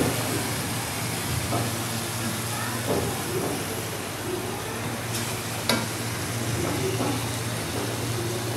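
Leftover masala gravy sizzling in a hot pan while a spatula stirs it, with two sharp clicks a little past halfway, under a steady low hum.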